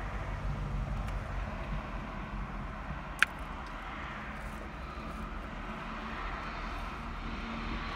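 Steady low vehicle rumble inside a car's cabin, with one sharp click about three seconds in.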